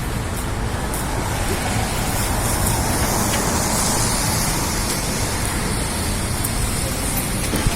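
Steady hiss of rain and traffic on a wet city street, swelling a little about halfway through.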